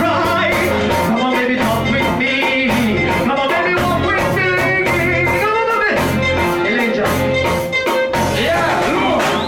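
Reggae music with a heavy repeating bass line, with a man singing and chanting over it into a microphone.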